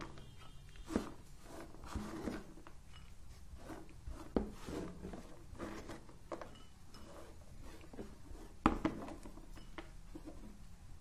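Faint, scattered taps and scrapes of cut carrot sticks being swept by hand across a plastic cutting board and dropped into a glass bowl, with one sharper knock a couple of seconds before the end.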